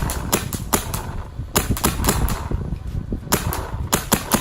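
Empire Mini GS electronic paintball marker firing: sharp shots in quick strings of three to five, with pauses of about a second between the strings.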